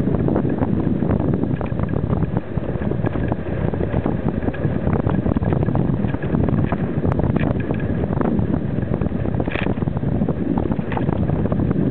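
Wind buffeting the microphone of a bicycle-mounted camera while riding, a steady low rumble, with constant small rattles and knocks from road vibration through the mount.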